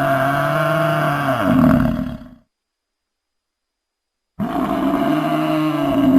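A large animal roaring: two long calls of about two and a half seconds each, the first ending about two seconds in and the second starting about four seconds in, with dead silence between.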